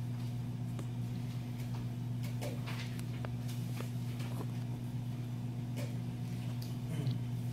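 Steady low room hum, with scattered faint rustles and clicks as sheets of paper are handled.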